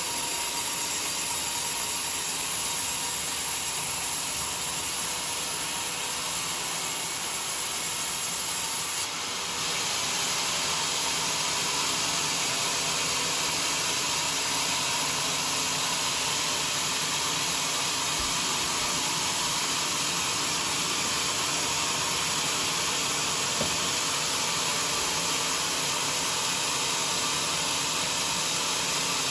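Sawmill blade cutting through a johar log: a steady, hissing saw noise, with a brief drop about nine seconds in.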